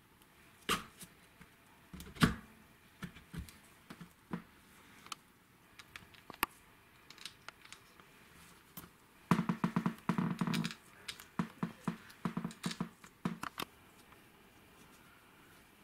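Metal parts of a hammer drill knocking and clicking as its aluminium gear housing and chuck sleeve are fitted and screwed down: a few separate knocks, the loudest about two seconds in, then a quick run of rattling clicks about nine seconds in and scattered clicks after.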